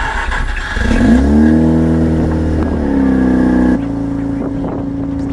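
Mazda RX-8's rotary engine starting. It cranks, catches about a second in and rises to a fast idle, then settles to a lower, steady idle about two-thirds of the way through.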